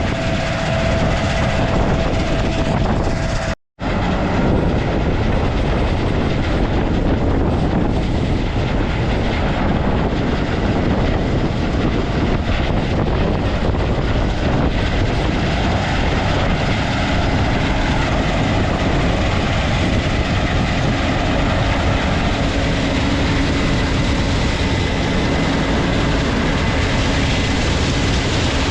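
Heavy farm machinery running: loud, steady mechanical noise with a brief cut-out about four seconds in.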